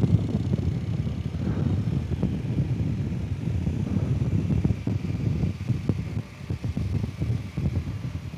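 Wind rumbling and buffeting on a helmet camera's microphone while riding a motorcycle, with the BMW R 1250 GS's boxer-twin engine running underneath. The rumble eases briefly a little after six seconds.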